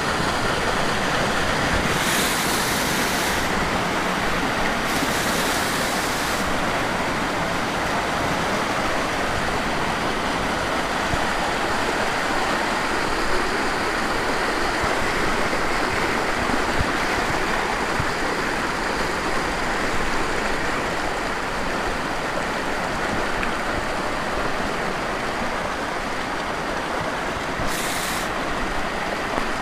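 Waterfall cascade rushing down a rock face: a steady, even roar of falling water. Three short stretches of brighter hiss lie over it, two in the first seven seconds and one near the end.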